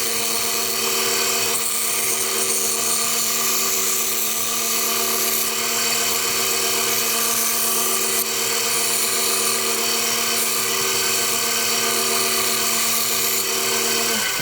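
A small electric motor running steadily at one pitch, winding down just before it stops near the end.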